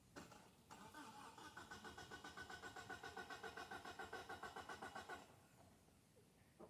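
Starter motor of a Mitsubishi Eclipse GST, jumped with a screwdriver, cranking the engine with the car in gear, so the starter itself inches the car along. A short burst, then steady rhythmic cranking at about six pulses a second that cuts off about five seconds in.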